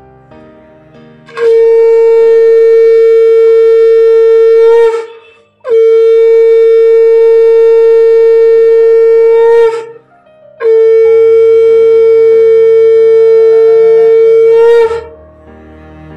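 A conch shell (shankha) blown in three long, loud blasts of about three and a half seconds each, each held on one steady note, with short breaths between them.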